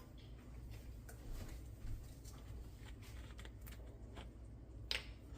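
Faint clicks and rustles of kitchen items being handled, with one sharper click near the end, over a low steady hum.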